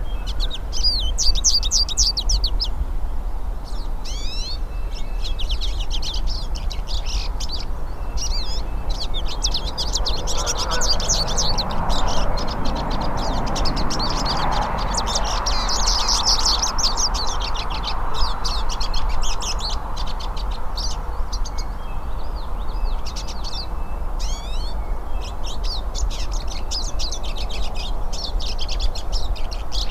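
Several hooded siskins (pintassilgos) singing at once, a continuous run of fast, high twittering phrases, over a steady low rumble.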